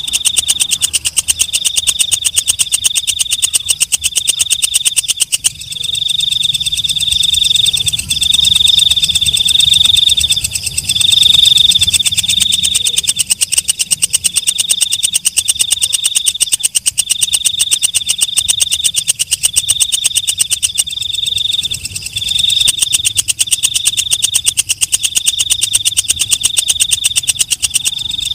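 A katydid (walang kecek, a leaf-mimicking bush cricket) stridulating loudly: a rapid, high-pitched ticking trill broken into short phrases of about half a second to a second, repeating with brief gaps.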